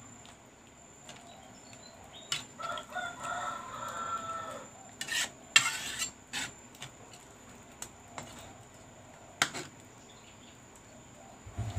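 A metal spatula stirring, scraping and clinking against an aluminium pan of catfish simmering in coconut milk, with several sharp knocks. A rooster crows for about two and a half seconds, starting a couple of seconds in.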